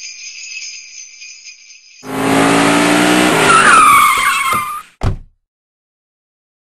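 Sleigh bells jingling, then about two seconds in a loud car sound: engine running with tyres squealing. It cuts off abruptly just before five seconds in, followed by a short thud and then silence.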